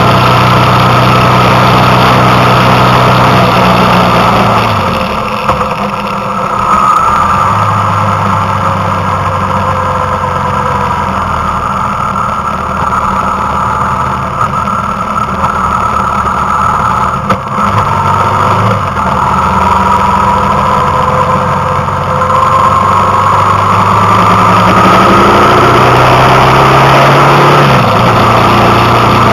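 Vehicle engine heard on board while driving, a steady drone that drops off about five seconds in and picks up again a couple of seconds later, with brief breaks in the note twice more later on.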